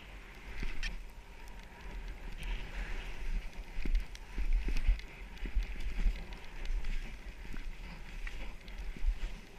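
Wind buffeting an action-camera microphone during a fast descent through deep powder snow, with the hiss and crunch of snow being ploughed through and scattered knocks from bumps, loudest around the middle.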